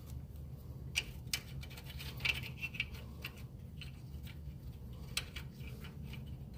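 A handful of light metallic clicks and clinks of a nut and small hardware being handled at a car's wheel hub, one of them ringing briefly a little over two seconds in, over a low steady hum.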